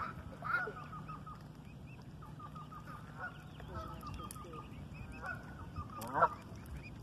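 Waterfowl calling: a run of many short, repeated calls, with louder, rising calls about half a second in and again about six seconds in.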